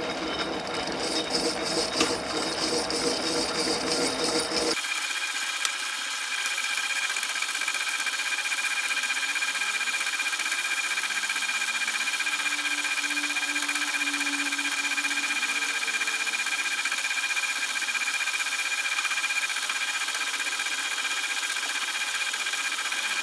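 Shop power tool or machine running steadily. About five seconds in the sound changes abruptly to a steady run with a constant high whine.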